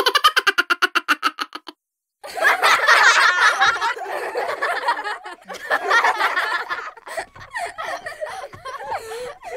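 Laughter: a quick pulsing giggle that stops abruptly, then after a short silence a longer stretch of laughing that is loudest at first and then thins out.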